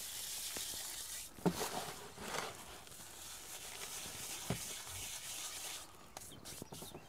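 Dry cauliflower seed pods being rubbed between bare hands in a plastic tub to thresh out the seed: a dry rustling and crackling, with a couple of soft knocks.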